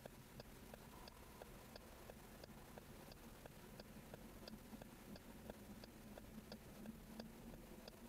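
Car's turn-signal indicator clicking steadily inside the cabin, a faint tick-tock of about three clicks a second that alternates between a sharper and a duller click, over a faint low hum while the car stands waiting to turn.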